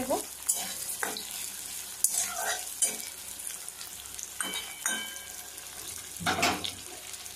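Sliced onions sizzling in hot oil in a steel kadai, stirred with a metal spatula that scrapes against the pan every second or so.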